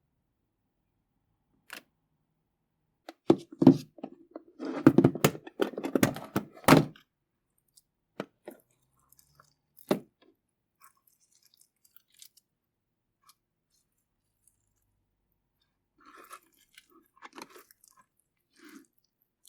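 Slime being squeezed and poked by hand, giving crunchy crackles and sticky clicks. The sounds are loudest and densest about three to seven seconds in, then thin to scattered clicks, with a few more near the end.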